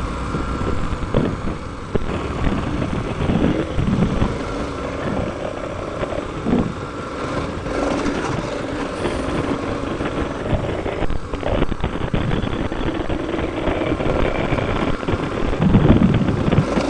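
KTM adventure motorcycle engine running steadily while riding a gravel forest road, heard from a helmet camera under a steady rush of wind and road noise.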